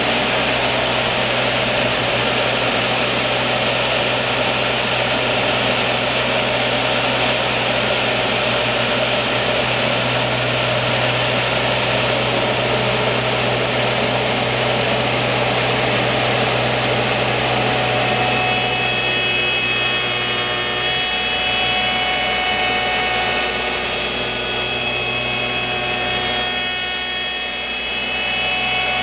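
Automatic copy shaping machine (Lih Woei LH-28-A) running, its cutter machining a wooden workpiece on the turning table with a loud, steady machining noise. About two-thirds of the way through, the noise thins a little and a steady high whine of several pitches comes through.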